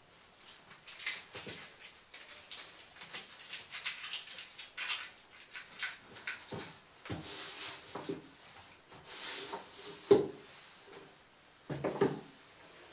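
Rustling and handling of clothing as a shirt collar, tie and jacket are put on, with scattered light taps and a few dull thumps, the loudest about ten seconds in.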